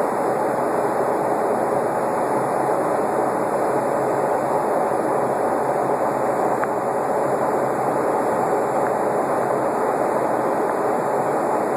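Steady cabin noise inside a Boeing 757 in its climb after takeoff: an even rush of jet engines and airflow that does not change.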